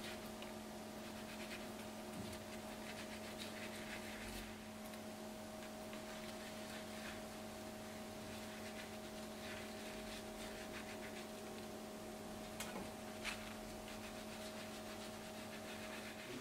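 Faint, steady hum under quiet rustling and soft handling sounds as slices of bread are lifted from a paper-lined basket and laid on a baking tray, with a couple of small clicks about thirteen seconds in.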